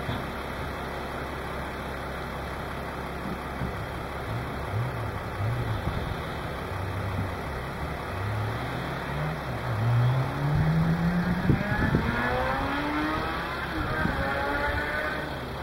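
Crosskart's Kawasaki ZZR 600 inline-four motorcycle engine revving up and down. Short blips of revs come in the first several seconds, then a longer climb to high revs about ten to twelve seconds in, which is the loudest part, and it keeps rising and falling near the end.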